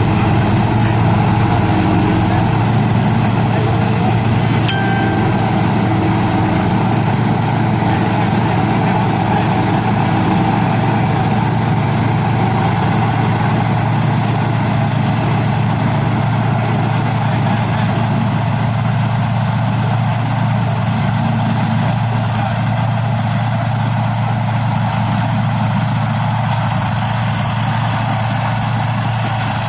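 Thai Seng Yont Jao Payu 4.0 rice combine harvester's engine running steadily, with a deep steady hum and a thin high whine above it.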